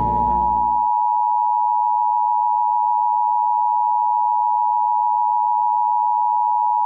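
Emergency-broadcast-style attention signal: two steady high tones sounding together and held without a break. Music fades out under it within the first second.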